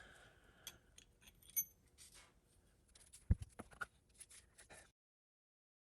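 Faint scattered clicks and taps of small steel parts being handled during transfer case reassembly, with one sharper knock a little over three seconds in. The sound cuts out completely about five seconds in.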